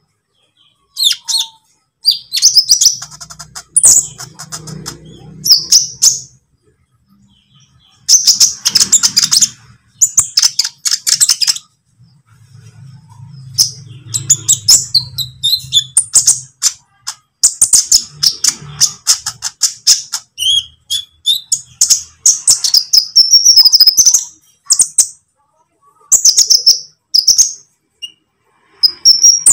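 Kolibri ninja (konin) sunbird singing: rapid, high-pitched twittering and ticking phrases in bursts separated by short pauses, coming almost without break in the second half. A faint low hum sits under it about 3 and 13 seconds in.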